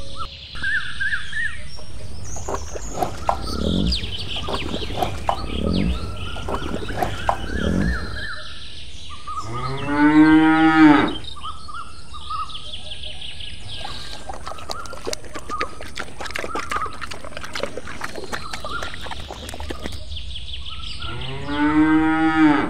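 A cow mooing twice, each a long low call lasting about a second and a half: one about ten seconds in and one near the end.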